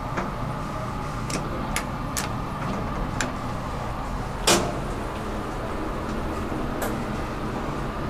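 Otis elevator car doors sliding shut over the car's steady hum, with a few light clicks early on and a single solid thump about four and a half seconds in as the door panels meet.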